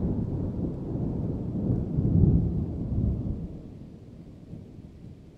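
Deep rolling thunder rumble that swells briefly about two seconds in, then fades away.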